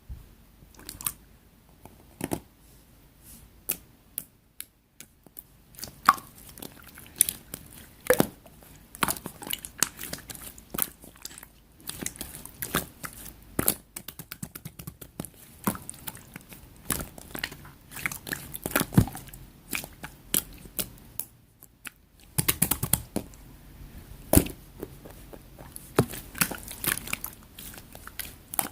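Light purple slime being handled, pressed and poked by hand, giving irregular sticky clicks and pops, some in quick runs.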